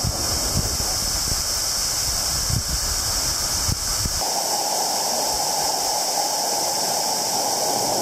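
Waterfall pouring into a pool: a steady rushing hiss of falling water, with some low rumble and a few soft thumps in the first half. The sound changes abruptly about four seconds in, losing its low end.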